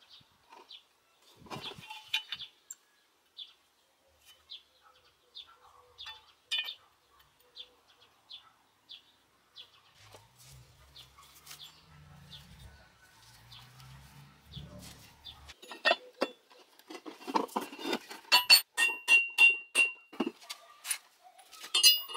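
Welded steel parts of a homemade drill press vise clinking and scraping together as the box-section jaw is slid onto the angle-iron base by hand. The loudest part is near the end: a quick run of sharp metal clinks, some ringing briefly.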